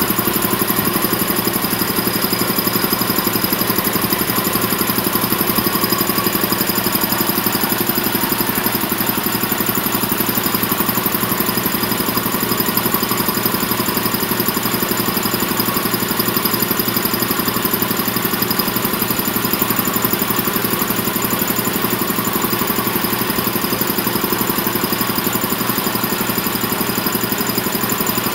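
Champion VR5-8 80-gallon shop air compressor running under load: its 5 HP electric motor drives the cast-iron reciprocating pump as it fills the tank, a steady, loud machine sound with an even, fast pulse from the pump strokes.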